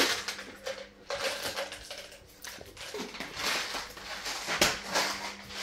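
Light clinks and knocks of dishes and objects being handled on a table, a handful of scattered taps over a faint steady hum.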